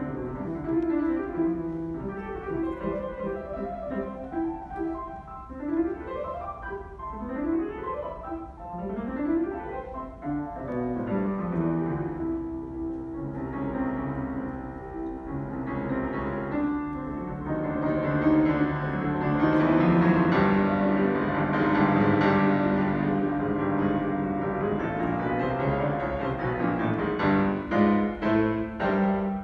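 Grand piano and symphony orchestra playing a piano concerto. The piano plays several quick rising runs, then the orchestra swells fuller and louder about two-thirds of the way through, with separate chords near the end.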